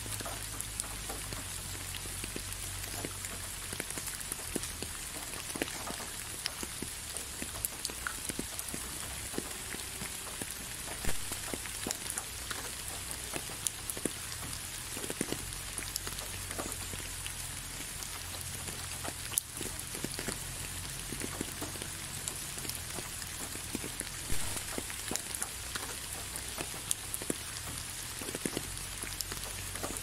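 Steady rain falling, an even hiss thick with the ticks of separate drops striking close by; a couple of drops stand out louder.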